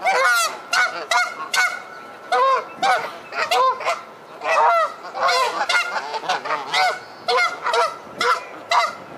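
Canada geese honking: a rapid series of short honks, about two a second, each rising and falling in pitch.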